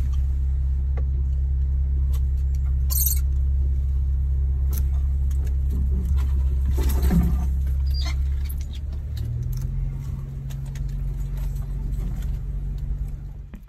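Jeep Wrangler Rubicon's engine and drivetrain droning steadily in the cabin at slow trail speed. Scattered ticks and short scrapes from brush and branches rub along the body, with a louder scrape about three seconds in and another about seven seconds in. The engine note drops to a lower, quieter drone about nine seconds in.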